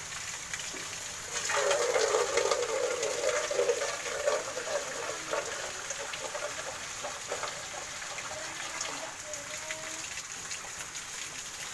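Water pouring in a loud gush, starting a little over a second in and lasting about three seconds, then tapering to lighter splashing, over a steady hiss of rain.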